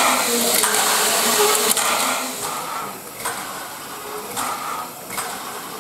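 Er-class steam locomotive hissing steam: a steady hiss for the first couple of seconds, then short puffs about once a second.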